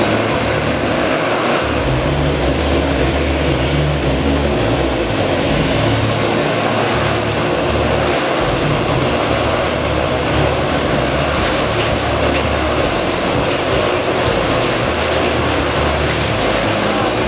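Motorcycles riding inside a steel-mesh Globe of Death, their engines running loud and steady without a break as they circle.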